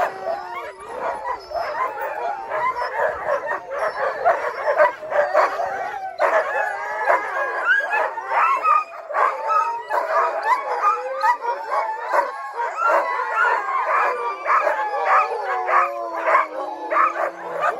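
A pack of sled dogs howling and yipping together, many wavering high calls overlapping at once. The short yips and barks crowd in more thickly from about a third of the way in, and one long, lower howl slides slowly downward near the end.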